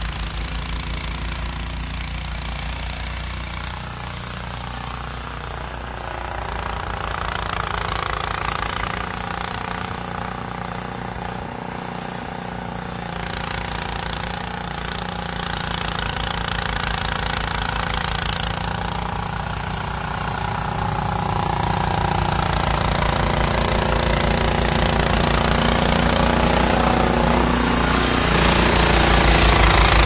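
Two-stage gas snowblower's small engine running steadily under load as it throws snow, with a fast, even firing pulse. It grows louder toward the end as the machine comes close.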